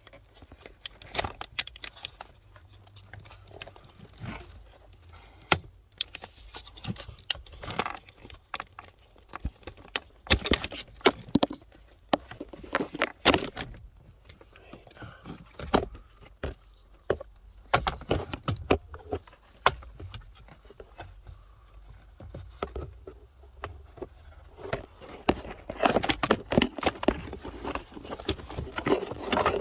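Irregular clicks, knocks and rattles of hands working at the plastic dashboard trim and switch connectors under a steering column, unclipping parts.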